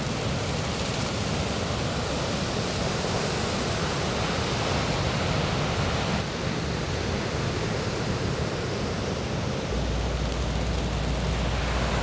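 Steady rushing noise of wind on the microphone mixed with ocean surf, with a gusty low rumble underneath.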